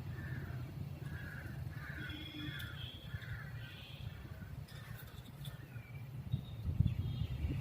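Birds calling: a run of short, harsh calls about twice a second, with a few thin whistled notes, over a steady low rumble.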